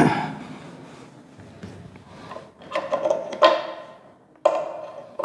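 A felt duster rubbing across a whiteboard, with a few sudden scrapes and knocks of handling that each fade within a fraction of a second.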